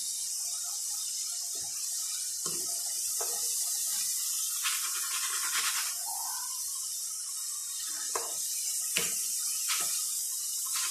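Potato sticks deep-frying in hot oil: a steady sizzling hiss, with a few short clicks and knocks of the spatulas and a metal mesh strainer against the pan, mostly in the second half.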